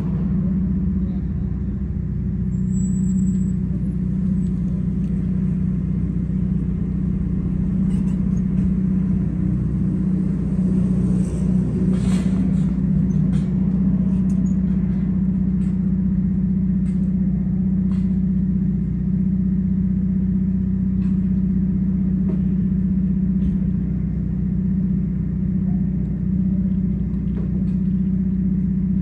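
A steady mechanical hum at one constant pitch over a low rumble, with a few faint ticks and clicks around the middle.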